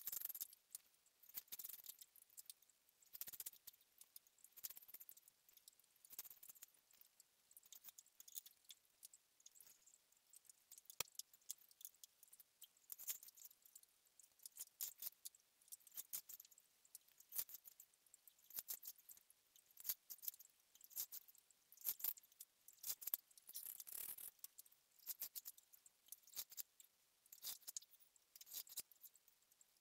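Strands of fine 2.5 mm chair cane being threaded and pulled through a woven cane seat: faint, irregular scratchy rustles and light clicks as the cane slides against the weave.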